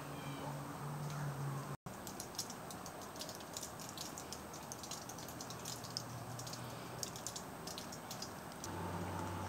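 Irregular light ticking and pattering of drops and bits of ice falling from ice-laden trees and branches, over a faint low hum.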